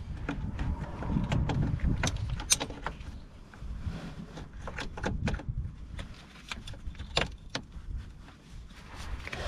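Irregular metallic clicks, scrapes and knocks of locking pliers gripping and squeezing a spring hose clip on a radiator hose, with gloved-hand handling noise.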